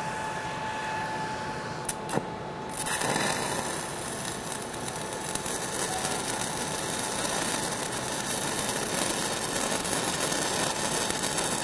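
Stick welding with a 6010 electrode on a downhill root pass. The arc is out at first, with two sharp clicks about two seconds in as it is struck again; then the arc's steady crackle and hiss runs from about three seconds in.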